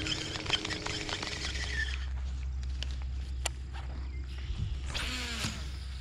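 Crunching footsteps on a gravel road for the first second or two. Then a steady low wind rumble on the microphone, a few faint ticks, and a single bird call gliding downward about five seconds in.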